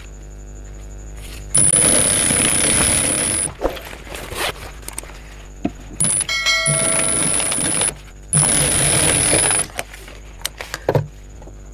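Primex high-speed single-needle industrial sewing machine stitching in three short runs of one to two seconds each, with a high steady whine while it runs and clicks and fabric handling between runs. A brief electronic chime sounds about six seconds in.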